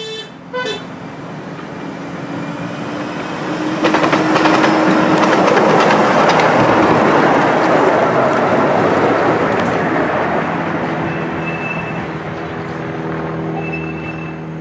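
Narrow-gauge train passing close by, with two short toots right at the start, then wheels clattering over the rails as it nears, peaks and draws away, fading toward the end.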